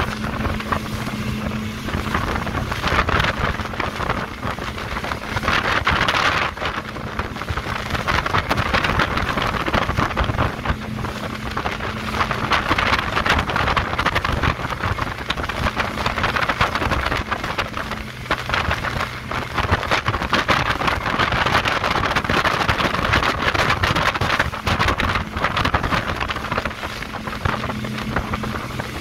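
Twin outboard motors running at speed, a steady low drone under the rush of wake water and wind buffeting the microphone. The wind and water noise is the loudest part, and the engine drone is plainest at the start and near the end.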